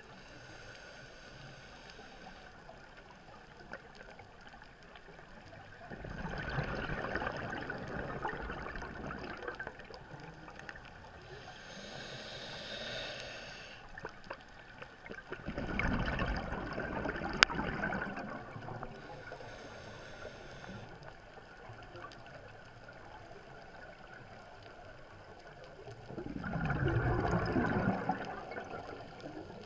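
Scuba diver breathing through a regulator, heard underwater: three bursts of bubbling exhalation about ten seconds apart, with fainter high hissing inhalations between them.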